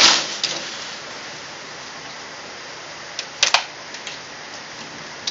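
Heavy storm rain falling with a steady hiss, a loud brief rush of noise at the start, and a few sharp clicks about three and a half seconds in.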